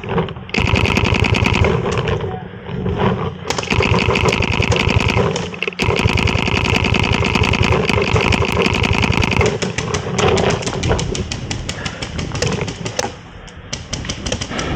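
Paintball markers firing long, rapid strings of shots, many a second, in several bursts with short breaks. The firing thins to scattered shots from about nine seconds in.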